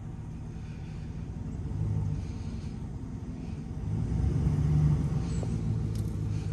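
Dump truck engine running with a low rumble, briefly louder about two seconds in and growing louder again from about four seconds in.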